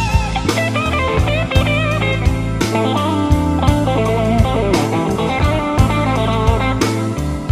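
Electric blues band playing an instrumental break: a lead electric guitar plays a solo with bent and wavering notes over bass and a steady drum beat.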